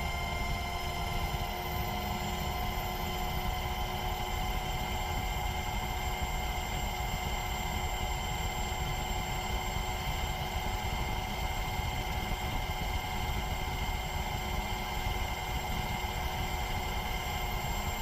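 Steady aircraft engine noise: an even rush with several constant whining tones and no change in level. No blast is heard.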